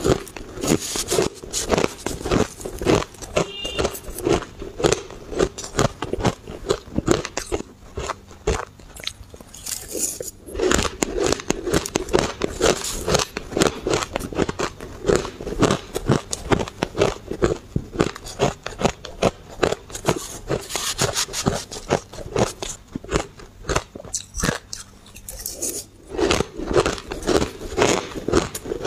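Close-miked mouth crunching and chewing of blended shaved ice: a dense run of crisp crunches, several a second, with short pauses between mouthfuls.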